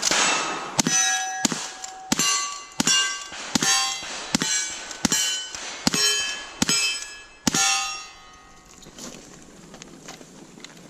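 Lever-action rifle fired in a rapid string, about one shot every 0.7 seconds, each shot followed by the ringing clang of a steel target being hit. The string stops about three quarters of the way in.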